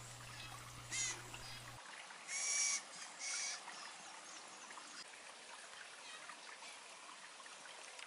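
Blue jay calls: three short calls, one about a second in and two slightly longer, harsher ones around two and a half and three and a half seconds in, over a faint steady background.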